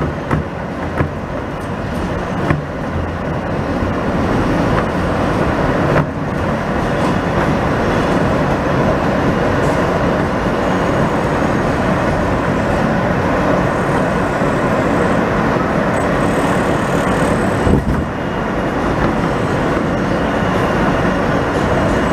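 New York City Subway train running on an elevated track, heard from aboard. The running noise grows louder over the first few seconds and then holds steady, with a few sharp clicks in the first three seconds.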